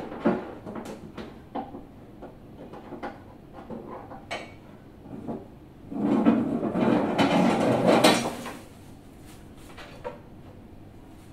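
Knocks and clicks of a wall-mounted TV and its power cable being handled as the cable is plugged into the back of the set, with a louder rustling scrape lasting about two seconds midway.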